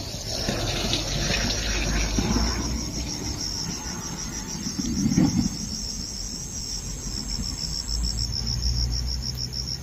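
Insects chirping in rapid, even pulses, a steady high-pitched trill. A brief low sound stands out about five seconds in.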